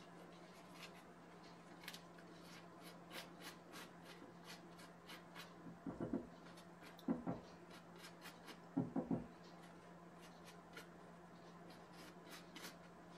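Quiet hand-handling sounds: light rustling and clicking of fingers working at a paper coffee filter over a glass jar, brushing off stuck sprouting seeds, with a few soft knocks midway. A faint steady hum runs underneath.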